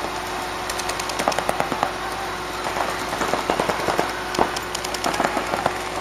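Paintball markers firing in rapid strings of sharp pops, starting about a second in and continuing in dense bursts.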